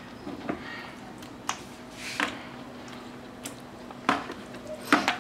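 A spoon stirring chunks of oily mango pickle in a plastic bucket: scattered clicks and knocks of the spoon against the bucket, with soft wet squishing.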